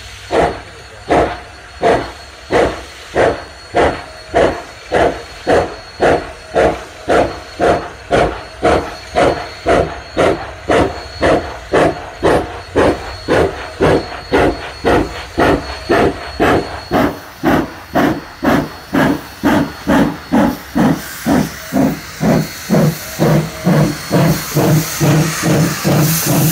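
Rio Grande Southern No. 20, a narrow-gauge 4-6-0 steam locomotive, working with sharp exhaust beats from its stack (stack talk), about two a second and quickening steadily. Toward the end the hiss of steam from the cylinders grows loud as the engine passes close.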